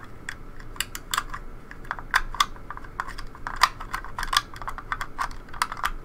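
Irregular light plastic clicks and taps from lock-picking tools working the levers inside a 3D-printed plastic lever lock as it is picked.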